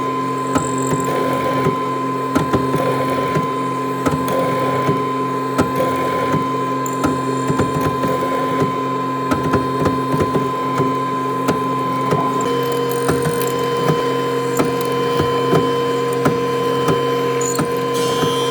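A woodworking machine running with a steady hum and whine. Frequent short, sharp clicks and knocks of wood sound over it, and a second steady tone joins about twelve seconds in.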